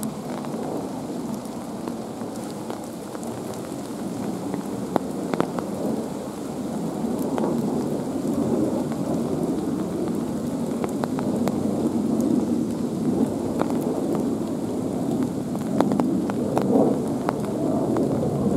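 Steady rain: a dense, even hiss with many scattered sharp drop ticks, growing louder partway through.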